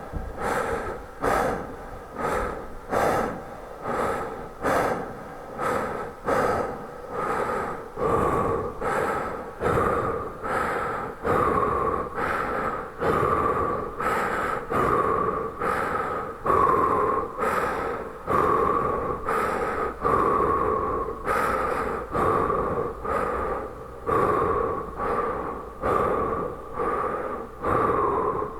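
A man breathing deeply and heavily in a steady rhythm, about one breath a second, each breath starting sharply and fading away.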